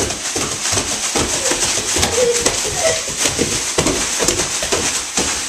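Black plastic garbage bags rustling and crinkling as children hop in them on a wooden floor, with irregular thumps from their landings.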